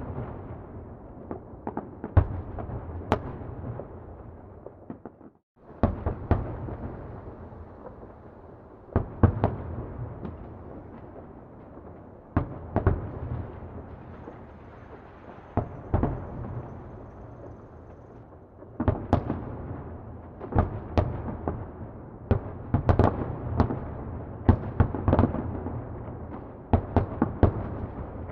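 Distant fireworks going off: a long run of sharp bangs, each trailing into a rolling rumble, with the bangs coming thicker and faster in the second half. The sound drops out for a moment about five seconds in.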